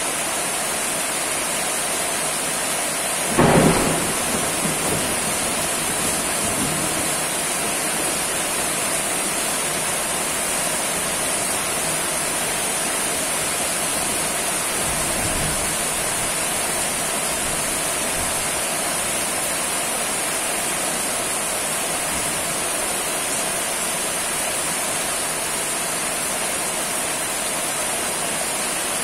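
Steady heavy rain. A loud crack of thunder comes about three seconds in and rumbles away over the next few seconds, with a fainter low rumble about halfway through.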